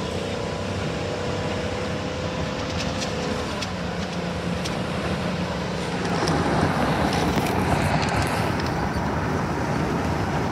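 Engine and road noise heard from inside a moving vehicle: a steady hum at first, then louder tyre and engine noise from about six seconds in.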